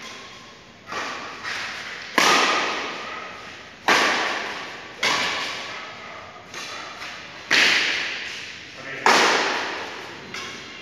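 Badminton rackets striking a shuttlecock in a rally, about a hit a second, each a sharp smack with some much harder than others. Every hit rings on in the echo of a large hall.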